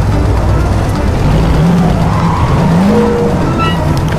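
Race-car engine sound, a steady low rumble that revs up and down in pitch twice, with background music.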